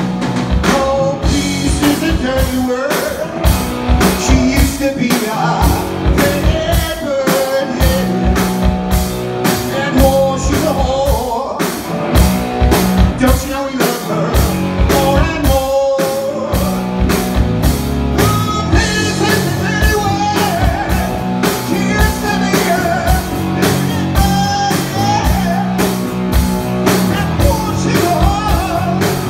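Rock band playing live on stage: distorted electric guitars, bass guitar and a drum kit keeping a steady beat, with a male lead singer.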